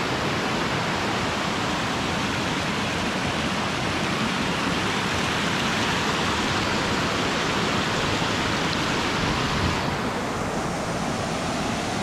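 Waterfall pouring steadily, a dense, even hiss of falling water; the upper hiss softens slightly near the end.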